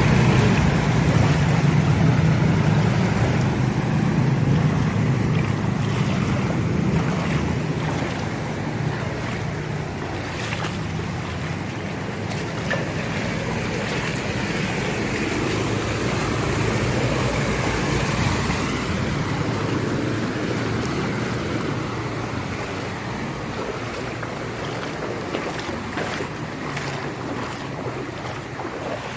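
Wading through street floodwater: water sloshing and splashing continuously. A motor vehicle's engine rumbles low at the start and fades away over the first several seconds.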